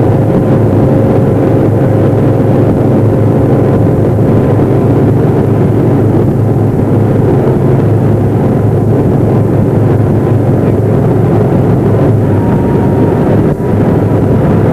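Boat engine running steadily at speed, with wind buffeting the microphone.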